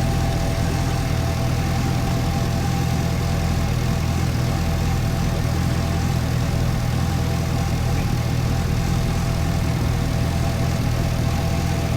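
2010 Camaro's LS3 6.2-litre V8 idling steadily, with a misfire that the owner traces to two bad spark plugs and their wires.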